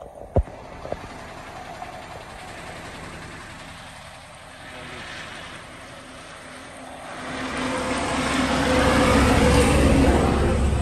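Moving truck heard from its cab: engine rumble and road noise, with a sharp knock about half a second in. From about seven seconds the rush and rumble grow much louder as a container truck passes close alongside.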